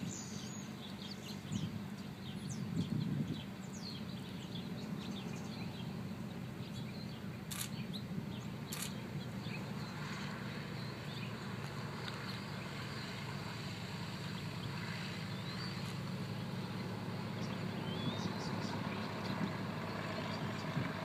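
Beechcraft Bonanza D35's six-cylinder piston engine droning steadily at low power through the landing and rollout. Birds chirp over it in the first few seconds.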